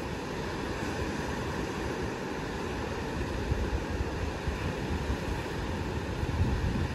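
Small sea waves washing onto the shore, with wind buffeting the microphone in low gusts that grow stronger in the second half.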